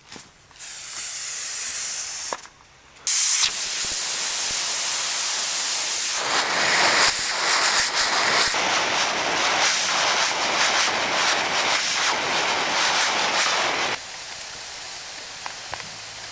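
Loud steady hiss from cooking over the fire, like hot fat or steam in a pot of meat curry. A short hiss comes about half a second in, then a louder one starts suddenly about three seconds in. It grows fuller with faint crackles and cuts off sharply near the end, leaving a softer hiss.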